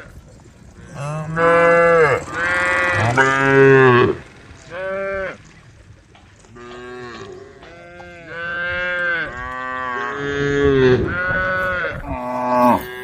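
Cattle mooing, one long call after another, several overlapping, each rising and then falling in pitch: cows calling to the herd.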